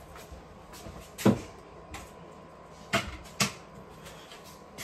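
Sharp knocks of kitchen things being handled and set down, such as a shaker put back and a cupboard door shut. The loudest comes about a second in, with two more about three seconds in.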